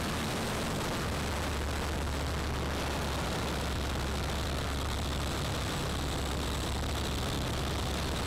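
De Havilland Tiger Moth's Gipsy Major four-cylinder inline engine running steadily in flight, heard from the open cockpit as a constant low drone under a steady rush of air.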